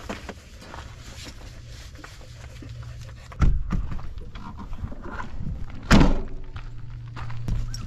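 Two heavy thumps, one about three and a half seconds in and a louder one about six seconds in, over a steady low hum.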